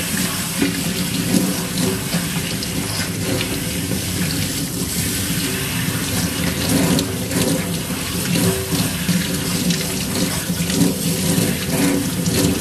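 Tap water running from a pull-down faucet onto a head of hair and splashing into a stainless-steel sink, while hands rub the scalp to rinse out shampoo. The flow is steady and unbroken.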